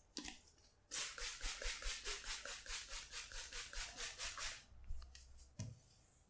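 Hands rubbing vigorously in quick, even strokes, about five or six a second, during a head massage. This goes on for three to four seconds, and a soft low thump follows near the end.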